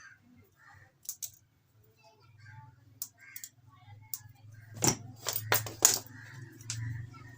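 Sharp metallic clicks and clatter of small parts and wire connectors being handled, with several loud clicks close together about five seconds in, over a low steady hum.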